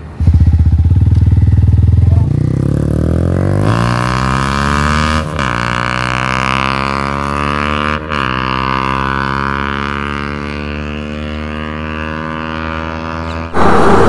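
Yamaha MT-15's 155 cc single-cylinder engine through an aftermarket Akrapovic full-system exhaust, pulling away and accelerating hard. Its note rises steadily, with two upshifts each heard as a quick drop in pitch, and fades slightly as the bike moves off. A loud rush of noise cuts in near the end.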